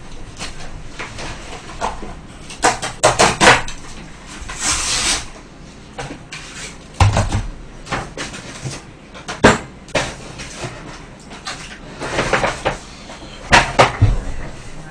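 Fried chicken being pulled apart by hand inside a cardboard takeout box: rustling and crackling of the box and crisp batter, with a few sharp knocks on the table.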